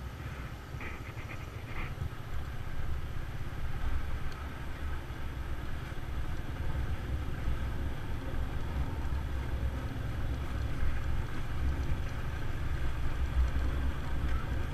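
Steady low wind rumble on the microphone while riding a two-wheeled vehicle on the road, with road and vehicle noise under it.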